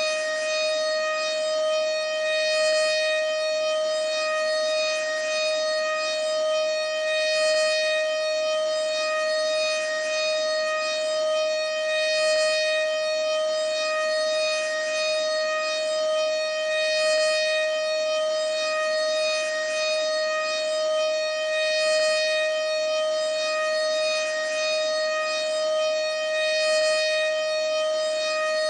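American Signal Corporation OM-120 outdoor warning siren sounding a steady tone, the Alert signal: one unchanging pitch with strong overtones, swelling slightly in loudness every few seconds.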